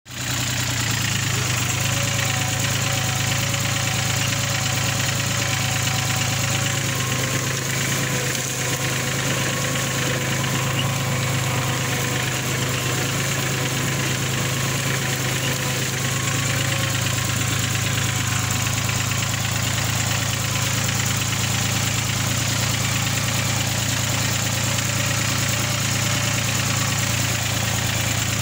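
Farm tractor's diesel engine running steadily while it pulls a disc plough through the soil, a constant low drone with a knocking clatter. It is heard close up from the driver's seat, right beside the exhaust stack.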